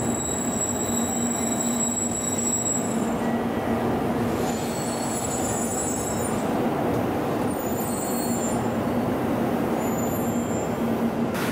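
700 Series Shinkansen train standing at the platform with its onboard equipment running. A steady hum and hiss, with faint high-pitched whines coming and going.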